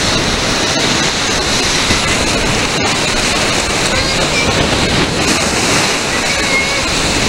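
Shallow surf washing in over the beach and foaming around a sand pile: a steady rushing of breaking water.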